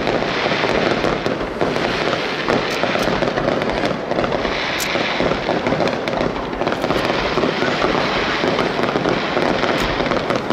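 Aerial fireworks display: a dense, continuous barrage of shell bursts, popping and crackling, with many sharp reports and no pause.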